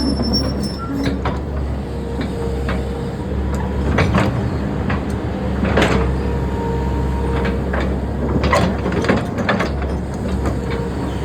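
Heavy construction machinery running steadily, with repeated sharp metal clanks and knocks over the engine drone.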